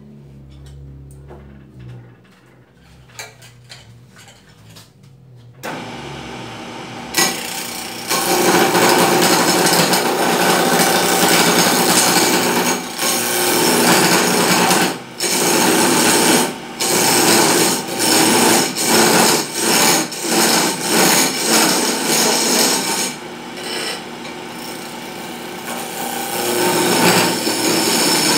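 Hand turning tool cutting a spinning wooden spindle on a wood lathe: a loud, rough cutting noise that sets in about seven seconds in, broken by short pauses as the tool comes off the wood between passes. Before it, a low hum with light clicks.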